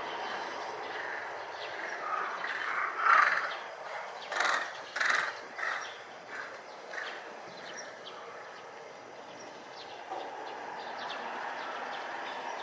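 Steady outdoor background noise with a bird calling several times in short, harsh bursts, about half a second apart, between about two and six seconds in.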